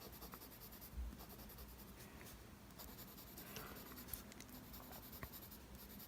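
Faint scratching of a mechanical pencil's lead on paper, with a soft low bump about a second in.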